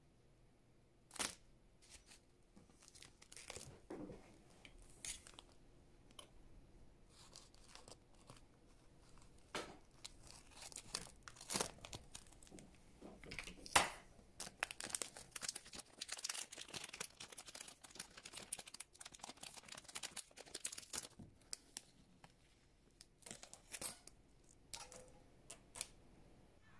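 Clear plastic packaging bag of a replacement watch strap crinkling and tearing as it is opened and the strap is pulled out, with scattered sharp clicks. The sharpest click comes about halfway through.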